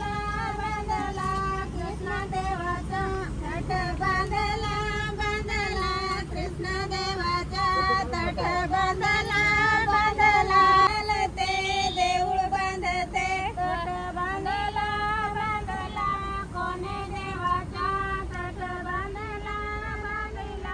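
Music with a woman singing a long, wavering melody that runs on without a break.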